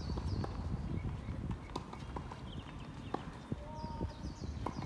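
Irregular sharp knocks of racket hits during a doubles rally, with short rising squeaks of court shoes on the floor.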